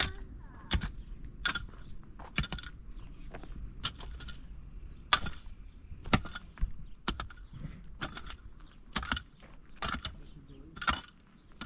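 A series of sharp knocks and clinks at irregular intervals, roughly one a second, some with a short metallic ring: hand-tool work, such as tapping or hammering on stove-building materials.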